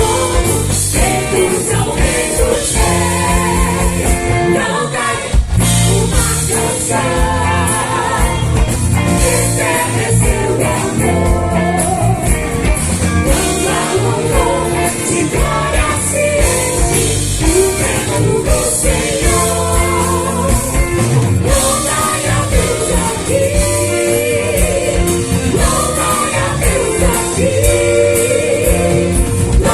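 Live gospel worship song: amplified singing over a band with a steady beat.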